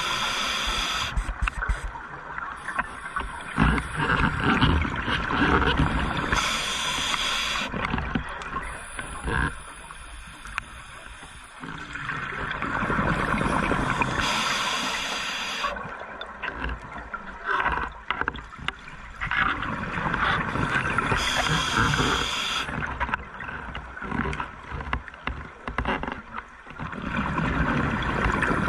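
A scuba diver breathing underwater through a regulator: a burst of breath roughly every seven seconds, with bubbling and gurgling between them.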